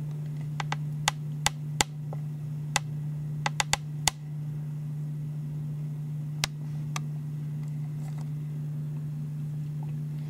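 Handling noise while the camera and steel workpiece are repositioned on a workbench: about a dozen sharp clicks and light taps, bunched in the first four seconds with two more a little past the middle, over a steady low hum.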